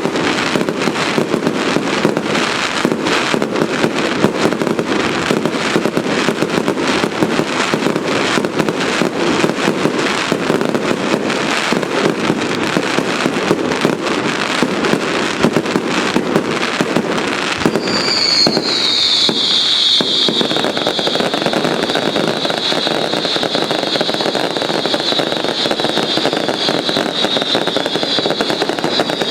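Fireworks display: a dense, continuous crackle of many small rapid bursts. About two-thirds of the way in, a high shrill whistle sets in, dipping slightly in pitch and then holding steady over the crackling.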